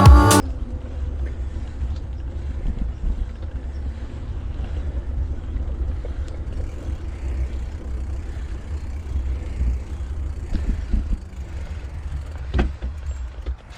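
Riding noise from a mountain bike rolling along a paved trail: a steady, fluctuating low rumble of wind on the microphone and tyres, with one sharp click a little before the end.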